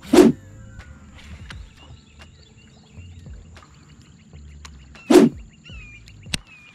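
Two short, loud whooshes about five seconds apart, then a sharp click near the end, with faint bird chirps.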